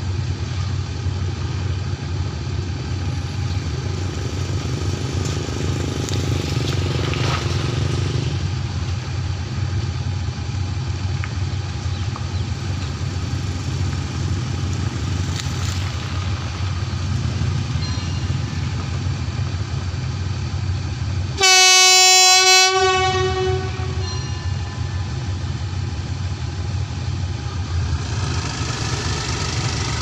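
A State Railway of Thailand GEK-class diesel-electric locomotive idles at the platform with a steady low hum. About three-quarters of the way through, its horn sounds one loud blast of a little over a second and rings on briefly. Near the end the engine picks up as exhaust smoke rises, getting ready to pull out.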